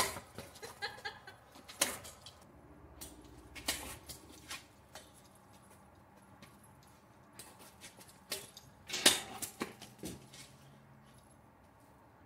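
Tauber longsword, a type XVIIIb blade, cutting into a pumpkin on a wooden stand: several sharp chops and knocks, the loudest at the very start and about nine seconds in.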